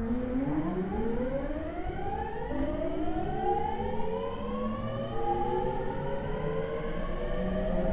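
Tokyo Waterfront Area Rapid Transit 70-000 series train (un-renewed car) accelerating away from a station, heard from inside the car. Its original VVVF inverter and traction motors whine, the pitch rising, dropping back and climbing again several times, over a low running rumble.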